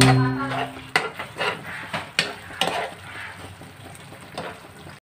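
A utensil stirring and scraping through simmering sauce in a nonstick frying pan, knocking against the pan about every half second over a faint sizzle. A brief steady tone sounds in the first second. The sound cuts off abruptly near the end.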